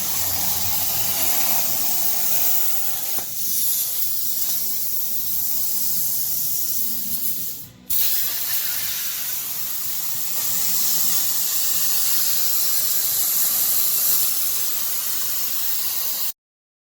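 Plasma cutter torch hissing steadily as it cuts steel parts. It drops out briefly about eight seconds in, starts again at once, and stops abruptly near the end.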